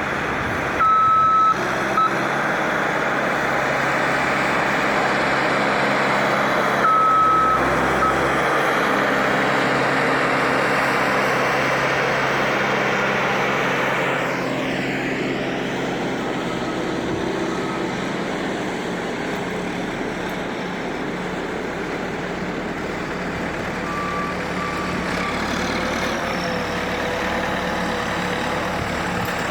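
Canadian Pacific train running by with a steady rumble. A single-note horn sounds twice near the start, each time one long blast followed by a short one.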